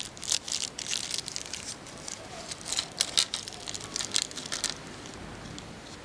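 Small clear plastic bag holding replacement transistors crinkling in the fingers as it is handled and opened: irregular crackles that die away about five seconds in.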